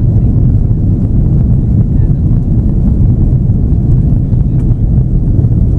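Steady, loud low roar of an Airbus A330-300's jet engines at climb power, heard from inside the passenger cabin.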